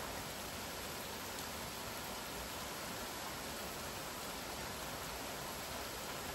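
Steady rain falling, an even, continuous hiss with no separate drops or breaks.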